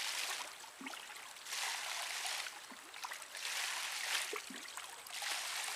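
Water poured from a plastic jug into a plastic colander held in shallow lake water, splashing in repeated pours about every one and a half to two seconds as the sand is rinsed out of the colander.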